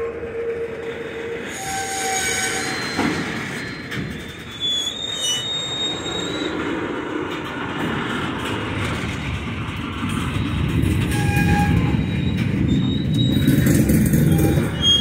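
Hopper cars of an iron ore train rolling past, with a steady rumble of wheels on rail. Short, high wheel squeals come and go throughout. The rumble grows louder over the last few seconds.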